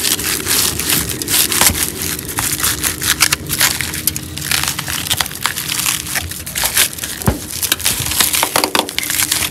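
Rust-rotted body metal and old rubber trim on a 1976 Porsche 914 crunching and crackling as they are pulled and pried away by hand. Rapid, irregular snaps and crackles come from brittle, rust-eaten steel that is flaking apart, "crispy".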